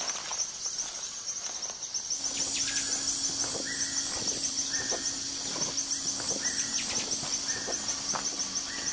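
Rainforest ambience: insects trilling steadily at a high pitch. From about two seconds in, a forest animal gives six short call notes about a second apart.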